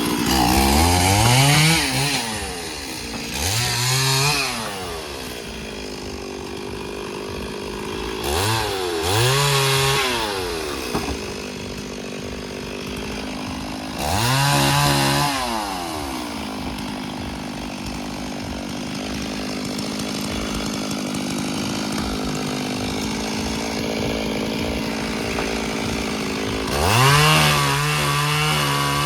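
Two-stroke chainsaw revved up to full speed five times, each burst lasting a second or two, and dropping back to a lower, steadier running speed in between.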